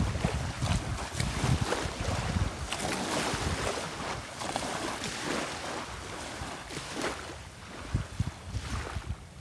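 Small waves lapping and washing onto a shelly beach, with wind buffeting the microphone in low gusty rumbles that are strongest near the start and again near the end.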